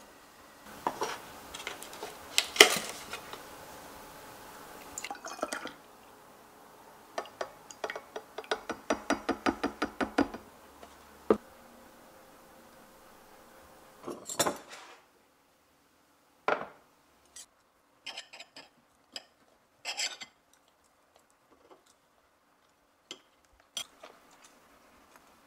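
Tableware sounds: a small glass seasoning jar shaken over a plate in quick rattling strokes, then scattered clinks of cutlery and dishes against a plate.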